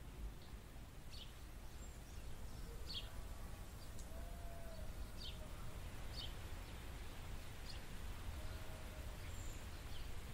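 Faint, sparse bird chirps, short high notes about every second or two, over a steady low outdoor rumble.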